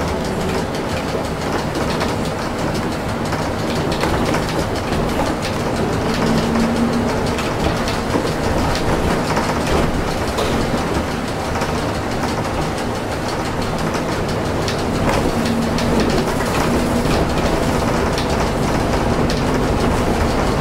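Cabin noise of a trolleybus running through the rain: a steady hum and rattle from the electric drive and bodywork, with tyres hissing on the wet road. The noise grows a little louder a few seconds in as the bus gets moving.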